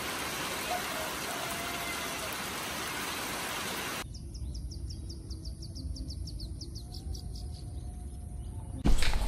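A steady, even hiss for about four seconds, then a sudden cut to quieter outdoor ambience with a low rumble and a rapid run of short, high chirps, about six a second. Near the end a much louder sound with sharp knocks sets in abruptly.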